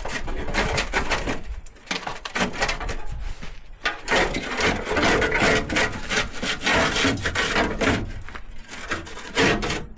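Irregular scraping and rubbing with knocks as a loose body panel is worked free and handled: the last front wing being pulled off.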